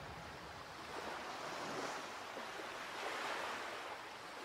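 Rushing of ocean waves, swelling twice and ebbing.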